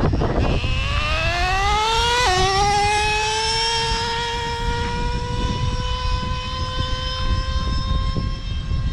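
Traxxas Slayer Pro 3.3 nitro RC truck's small glow-fuel engine screaming at full throttle: its whine climbs steeply in pitch, drops suddenly a little after two seconds in, then climbs slowly and holds high. A low rushing noise runs underneath.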